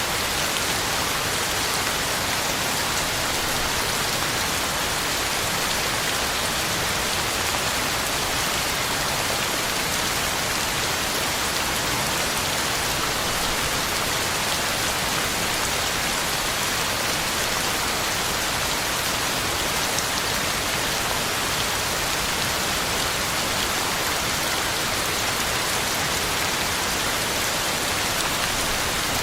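Steady heavy rain falling, a dense, even hiss of countless drops striking the ground and leaves.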